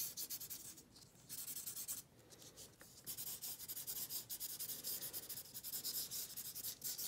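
Felt-tip marker scratching across paper in quick, short back-and-forth colouring strokes, pausing briefly twice in the first three seconds.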